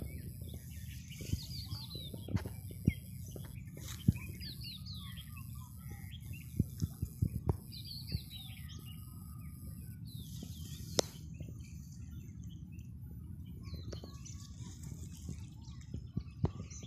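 Small birds chirping: short, quick high calls in scattered clusters, over a steady low rumble, with a few sharp knocks.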